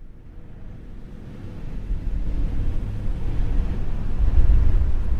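A deep, low rumbling drone that fades in and swells over the first two seconds, then holds steady.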